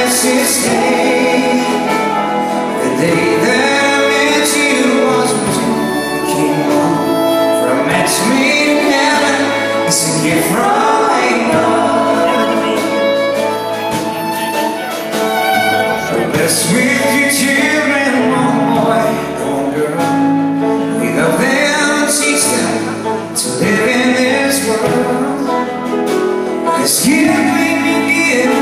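Live country band playing a song, with singing over drums and electric guitar, picked up from the audience in a large hall.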